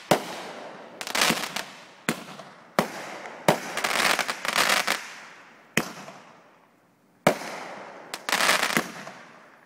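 Fireworks going off in quick succession: about eight sharp bangs, several followed by a second or so of dense crackling, each fading away before the next.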